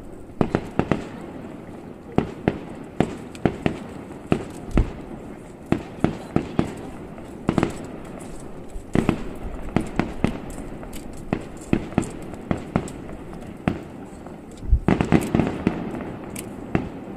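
Distant fireworks shells bursting: a string of sharp booms and cracks at irregular intervals, with a quick cluster of reports near the end.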